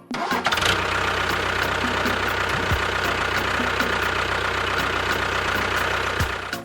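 An engine running steadily, with a low hum and a steady high whine over it.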